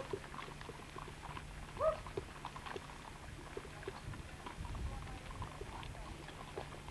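A single short, rising animal call about two seconds in, among scattered light clicks and a low steady hum.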